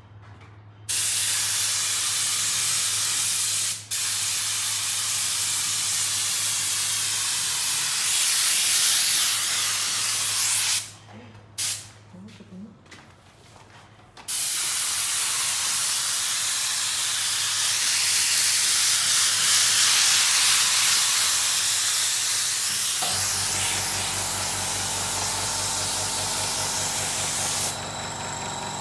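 Compressed-air paint spray gun hissing in long bursts, stopping for a few seconds near the middle and starting again. A low steady motor hum, the air compressor running, joins the spraying in the last few seconds.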